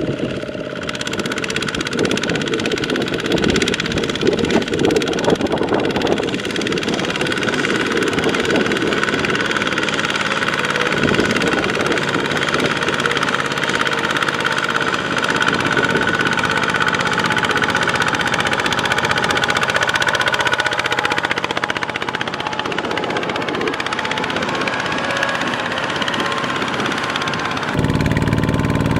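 A hand tractor's single-cylinder diesel and a Kubota M6040 tractor's diesel engine working hard together to push the loaded hand tractor through deep mud, a rough knocking engine sound. Near the end it changes abruptly to another hand tractor's single-cylinder diesel running steadily.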